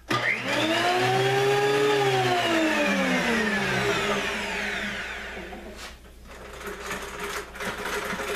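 Delta 22-590 benchtop thickness planer motor switched on with no board in it, spinning up at once, running for about two seconds, then switched off and winding down with a falling whine over about three seconds. Near the end there is light clicking and rattling as the depth-adjustment crank is turned.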